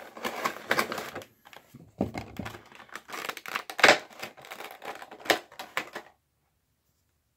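Handling of a vinyl figure's box packaging as the figure is taken out: irregular crinkling with sharp clicks and taps, the loudest click near four seconds in. The sound cuts off abruptly to dead silence about six seconds in.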